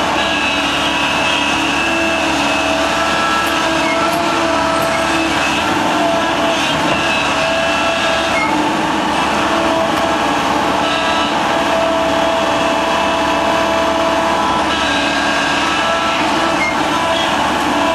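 Excavator's diesel engine and hydraulics running steadily under load while the tilting bucket works the soil. Whining tones from the hydraulics come and go in stretches of a few seconds.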